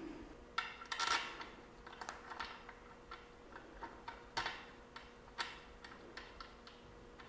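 Light, irregular metallic clicks and ticks of bolts being threaded by hand through the base of a UR10 robot arm into the tabletop, over a faint steady hum.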